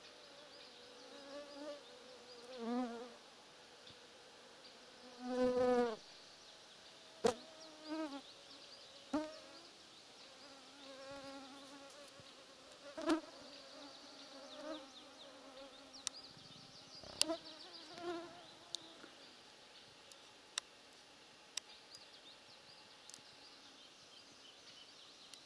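Flying insects buzzing close past the microphone again and again, the pitch wavering and bending as each one passes, loudest about five seconds in. A few sharp clicks are scattered through.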